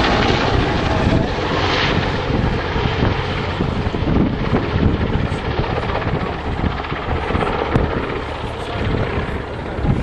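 AgustaWestland Merlin (EH101) helicopter flying, its rotor and engine noise steady and loud, growing a little fainter toward the end.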